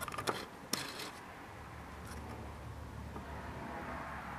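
A few light clicks and knocks from handling a metal part in the first second, then a faint steady low hum.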